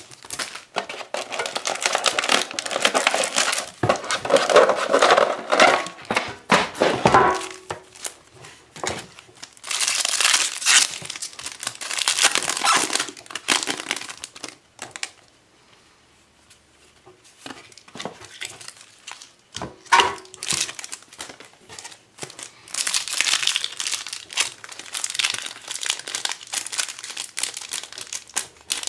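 Foil trading-card booster pack wrappers crinkling and tearing as they are handled and ripped open, in bursts, with a quieter pause about halfway through and a couple of short knocks.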